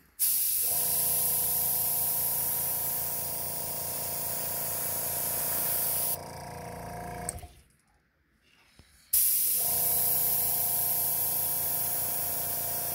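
Airbrush spraying paint through mesh netting onto a lure to lay on a scale pattern: a steady hiss of air with a hum beneath. It stops about six seconds in, falls nearly silent, and starts again about nine seconds in.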